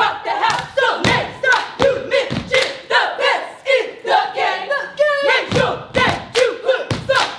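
Stomp-and-shake cheer squad chanting together in unison over a steady beat of foot stomps and claps on a wooden floor, about two a second.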